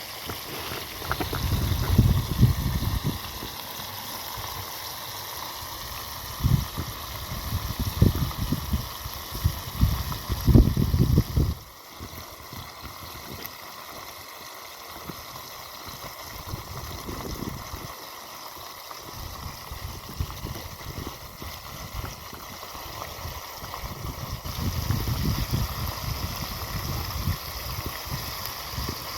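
Steady noise of running or bubbling water. Irregular low rumbles come and go over the first twelve seconds, then stop.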